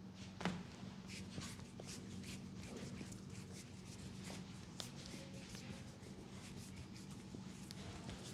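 Barber's hands working through hair and over the scalp in a head massage: soft rustling with many small scratchy clicks, and one light thud about half a second in.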